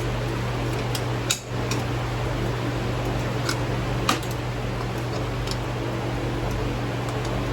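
A steady mechanical hum, like a fan running, with a few light metallic clinks, the clearest about a second in and about four seconds in.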